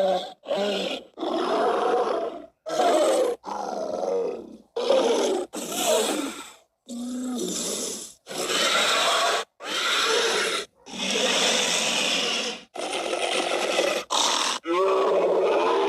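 Sound-effect roars and grunts of dinosaurs and prehistoric animals, played one after another. About a dozen short calls, each lasting half a second to two seconds, are split by brief silent gaps, and some bend up and down in pitch.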